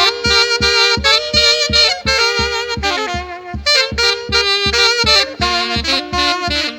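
Santiago dance tune from the central Peruvian Andes, with saxophones playing the melody in harmony over a steady, regular drum beat.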